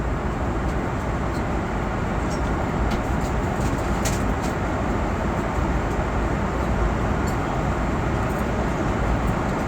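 Steady cabin noise of an airliner in flight, the constant low rush of engines and airflow, with a few faint light clicks.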